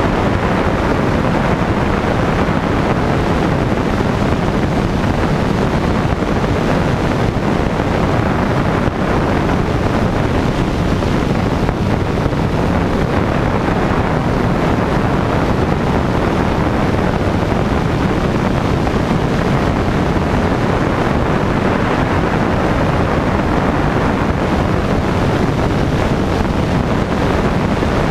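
Light aircraft's propeller engine running steadily in level flight, mixed with heavy wind rushing over the microphone.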